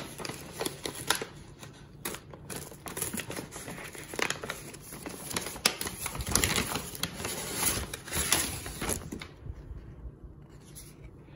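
Kraft paper meal-kit bag being opened and handled: crinkling, crackling paper rustle with many sharp little crackles. It dies down about nine seconds in.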